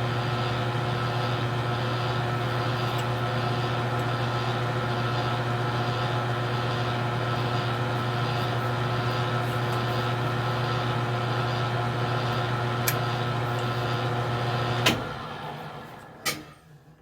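Metal lathe running steadily, driving a tap back out of a freshly threaded steel spacer pin. About fifteen seconds in it is switched off with a click and winds down, with another click a second later.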